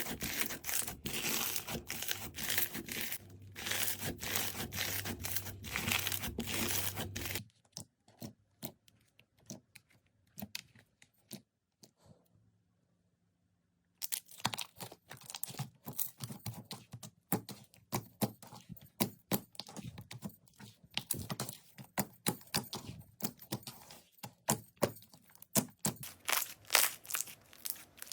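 Slime being squeezed and pressed, making dense crackling, crunchy clicks. The sound thins out and stops for a couple of seconds about halfway, then comes back as a run of sharp, separate clicks and pops.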